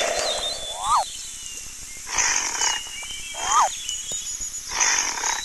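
Animal-call sound effects: two short calls that sweep quickly up and down in pitch, each followed about a second later by a hoarse, roar-like burst.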